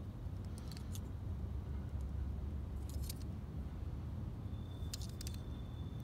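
Close handling noise from hands working a small clay head with a metal sculpting tool: a steady low rumble with three short clusters of small clicks, about one, three and five seconds in. A faint thin high whine comes in near the end.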